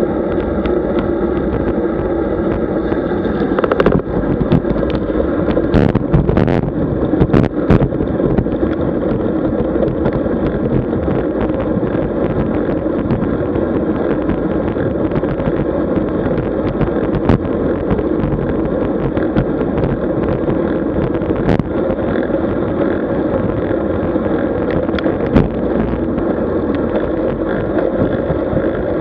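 Steady wind and road noise from a camera riding along on a road bike, with a constant droning hum underneath. A few sharp knocks come between about four and eight seconds in.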